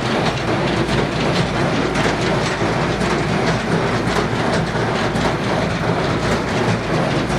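Bamfords BL30 baler running on a test run, a steady loud mechanical noise with faint rapid ticks throughout.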